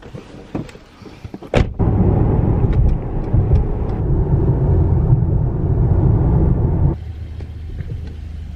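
A few light knocks and clicks, then a car door slams shut about a second and a half in. A loud, steady low rumble of a Mercedes-AMG's engine and tyres follows, heard from inside the cabin while driving, and it drops to a quieter steady idle hum near the end.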